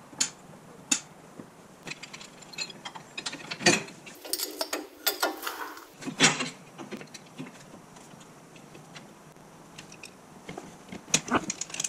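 Irregular metallic clicks and clanks of hand tools and bolts as the lower bracket is fitted to the bottom of a Firestone air spring on a leaf-spring axle, with a longer rattling stretch about four seconds in and a cluster of clicks near the end.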